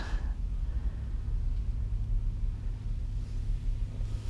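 Steady low rumble heard inside the cab of a parked Kenworth K200 cab-over truck.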